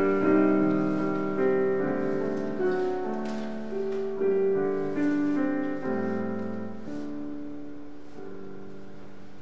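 Instrumental close of a church hymn: slow, sustained chords on a keyboard instrument, changing about once a second and settling into a long held final chord near the end.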